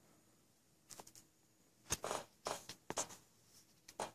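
Light handling noise: a handful of short, faint knocks and clicks as iPads are moved and laid side by side on a wooden table.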